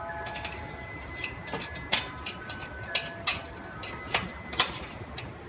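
Metal parts of a steel barbecue grill clicking and clinking as they are fitted together, with the held notes of a distant public-address chime melody playing underneath.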